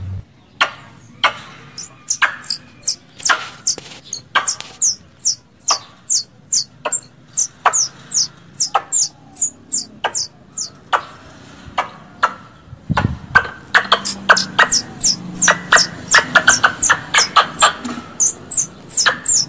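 Squirrels giving their mating call: a long run of short, sharp, high chirps, each a quick falling note, about two a second, coming faster and fuller in the second half. A dull thump about two-thirds of the way through.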